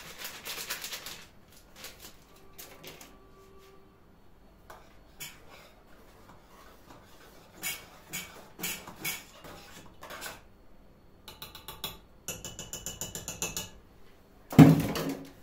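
Kitchen handling sounds as whipped-cream powder is emptied into cooked custard cream: scattered clicks and clinks of a utensil on the pot, then a few seconds of quick rhythmic clicking as the cream is whisked, and a loud knock just before the end.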